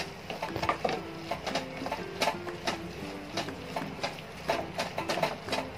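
A spatula scraping and tapping against a nonstick frying pan in quick, irregular strokes as it stirs sautéed onion, capsicum and tomato coated in spice powders.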